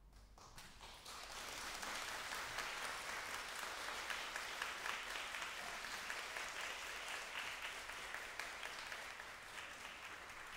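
Audience applauding, the clapping swelling over the first couple of seconds and then holding steady.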